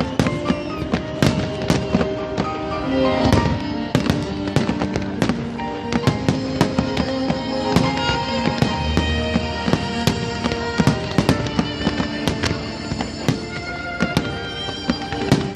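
Fireworks going off in rapid, irregular bangs, many per second at times, over loud music with long held notes played for the display.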